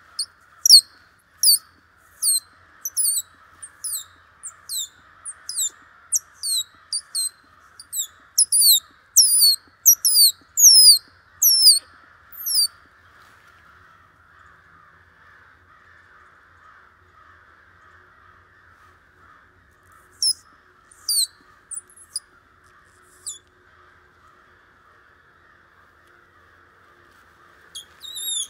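An animal giving a quick series of short, high calls that slide downward, about one and a half a second for the first twelve seconds, then a few more around twenty seconds and a new run near the end. A faint steady hiss runs underneath.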